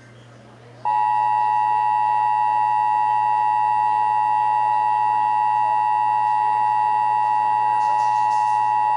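Emergency Alert System attention signal: the steady two-tone alarm starts about a second in and holds without change, an unbroken harsh dual tone announcing an emergency alert about to be read.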